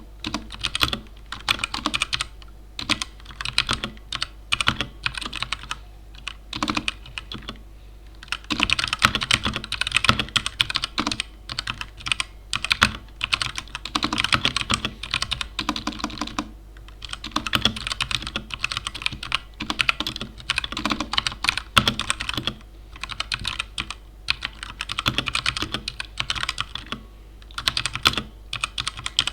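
Mechanical keyboard with tactile Gateron Brown switches being typed on: a steady clatter of keystrokes in irregular runs, with busy stretches of fast typing between sparser key presses.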